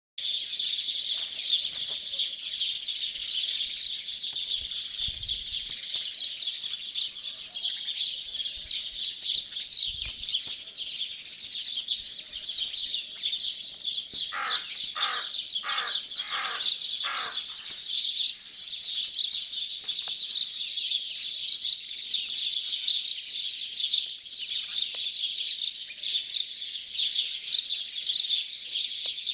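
A dense morning chorus of many small birds chirping and twittering without pause. About halfway through, a louder, lower-pitched bird calls about six times in quick succession.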